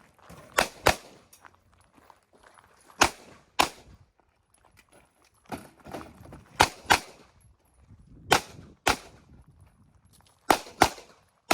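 Pistol shots fired in quick pairs, a shot and a follow-up a fraction of a second apart, as in a competition course of fire. There are about five pairs a second or two apart.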